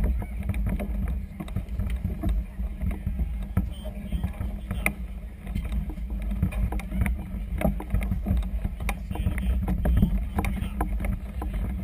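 Wind buffeting a GoPro Hero 2 camera's microphone: a constant low rumble that surges and eases, with scattered light clicks over it.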